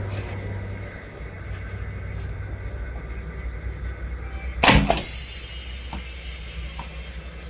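Homemade compressed-air tennis ball cannon firing once, a little past halfway: a sharp blast, then a hiss of escaping air that slowly fades.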